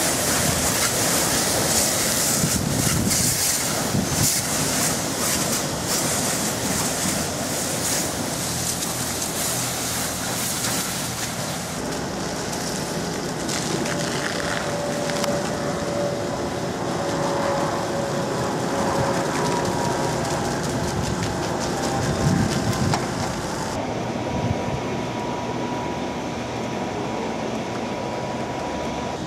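High-pressure water spray hissing from a hand-held wand as a car is rinsed, loud and steady for about the first twelve seconds. The sound then changes abruptly to quieter steady background noise with faint hums.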